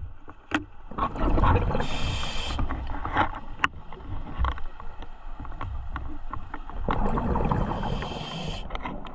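A scuba diver breathing underwater through a regulator: a short rush about two seconds in and a longer one about seven seconds in, over a low rumble, with scattered clicks and knocks.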